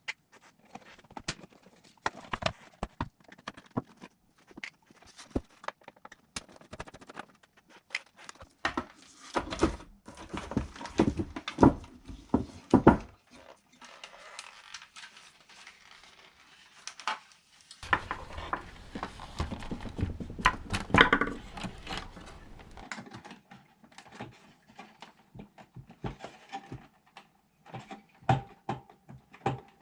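Glitchy no-input feedback sounds from a DigiTech RP-1 multi-effects processor: irregular clicks and crackles, swelling twice into denser, noisy rumbling, with a faint held tone near the end.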